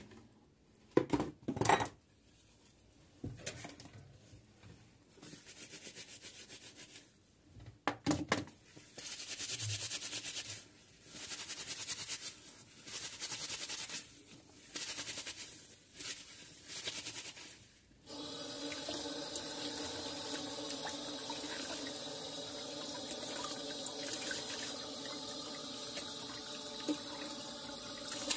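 A wet microfibre cloth scrubbing a frying pan in short bursts of strokes with pauses, with a few sharp knocks of the pan near the start. About two-thirds through, the tap is turned on and water runs steadily into the pan.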